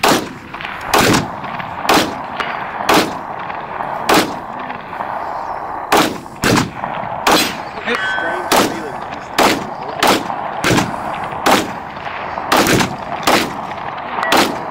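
Rifle shots from designated marksman rifles, about fifteen of them, coming roughly one a second at an uneven pace. A brief ringing tone sounds about eight seconds in.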